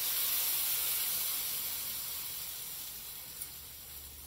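Sauce poured into a hot copper-lined pan of shrimp and stir-fried vegetables, sizzling and hissing. The hiss is loudest just after the sauce goes in, then slowly dies down.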